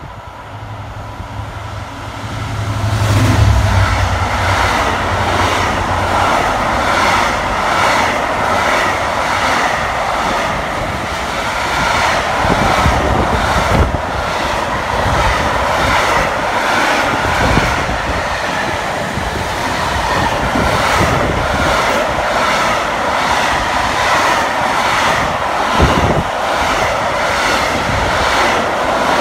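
Freightliner Class 66 diesel locomotive passing with its two-stroke V12 engine running, its low engine note loudest about three seconds in. A long train of intermodal container wagons then rolls by, with a steady rhythmic clatter of wheels on the rails.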